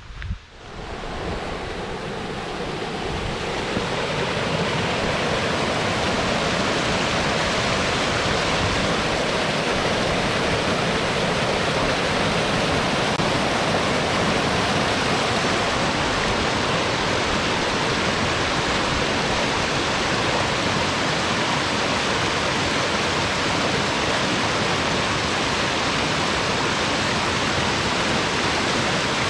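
Mountain stream rushing over rocks: a loud, steady rush of water that grows over the first few seconds and then holds even.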